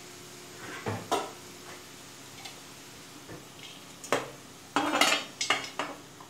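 Stainless steel pan lid clinking and rattling against the rim of a frying pan as it is set in place: a couple of knocks about a second in, one near four seconds, then a burst of clattering clinks around five seconds as the lid settles.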